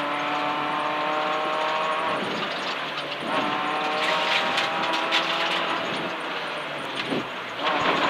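Ford Fiesta R1 rally car's engine pulling hard as heard inside the cabin, its revs climbing slowly. The revs drop about two seconds in, climb again, and ease off near six seconds. Steady road and tyre noise runs underneath.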